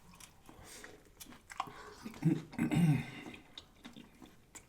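Close-up chewing and biting of food, with wet mouth clicks and smacks. About two seconds in comes a short voiced sound, a hum or murmur.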